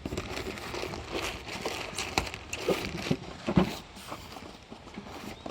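Cardboard shipping box being handled and pulled at by hand: irregular rustling and crackling of cardboard with a few sharp knocks.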